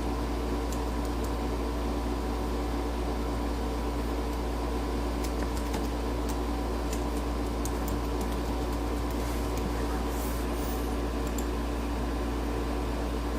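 Steady machine hum: a low drone with a few steady tones above it, unchanging throughout, with faint scattered ticks.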